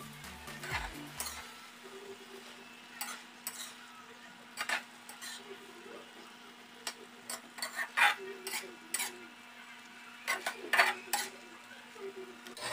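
Metal spatula stirring water spinach and tofu in a steel wok, scraping and clinking against the pan at irregular intervals, over light sizzling of the sauce as it thickens. A steady low hum runs underneath.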